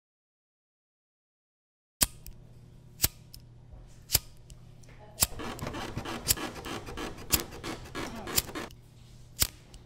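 After two seconds of dead silence, sharp clicks come evenly about once a second over a low steady hum. A rustling, scraping noise thickens between them for a few seconds near the end.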